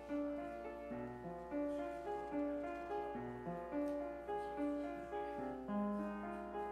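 Piano playing a slow piece in full chords, a new chord struck about twice a second and each one left to ring.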